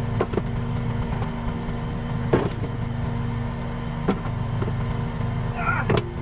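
Skid steer engine running at a steady speed, with a few sharp knocks, the loudest about two seconds in, and a brief screech just before a last knock near the end.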